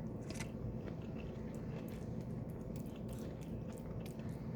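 A person chewing food close to the microphone, with scattered small wet mouth clicks.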